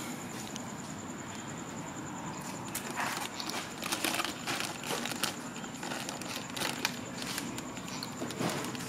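Irregular crinkling and crunching from about three seconds in: a plastic snack bag being handled and crisp stick snacks being eaten.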